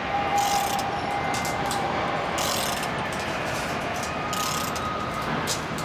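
Speaker-cluster hoist being wound by hand with a socket and ratchet handle: irregular runs of ratchet clicks and the gear mechanism turning as the speaker is raised.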